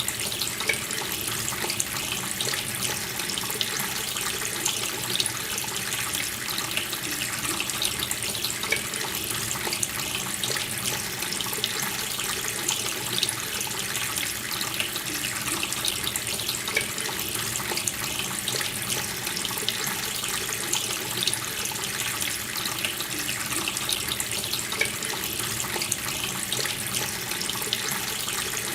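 Water running steadily from a tap, splashing into a sink.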